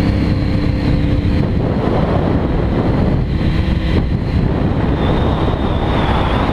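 Motorcycle riding at speed, heard from the moving bike: engine running under loud, steady wind rush across the microphone, the engine's pitch fading into the wind noise after about a second and a half.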